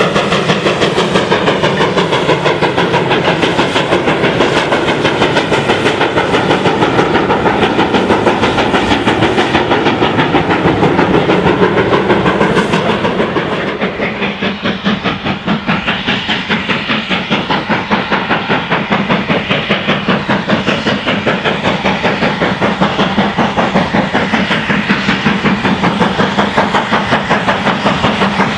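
GWR Manor class 4-6-0 two-cylinder steam locomotive working under steam, its exhaust beating in a rapid, steady rhythm with hiss. The beat turns slightly quieter and duller about halfway.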